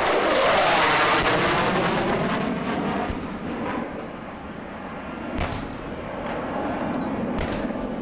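Lockheed Super Constellation's four radial piston engines rumbling as it passes, loudest in the first two seconds and then fading as it climbs away. Two sharp bangs come near the end, about two seconds apart.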